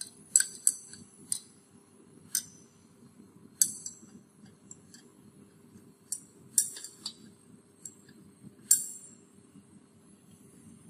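Glass stirring rod clinking against a glass beaker while stirring liquid paraffin and beeswax melting in a water bath: about ten sharp, irregular clinks over a faint steady hum.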